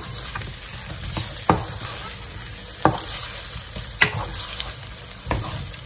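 Small potatoes sizzling steadily in a frying pan, the cooking water boiled off so that they are now frying in the fat, while a wooden spoon stirs them, knocking sharply against the pan several times.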